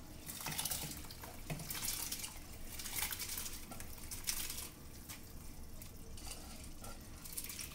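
Water poured from a steel tumbler into an aluminium pot of hot water, in several separate pours.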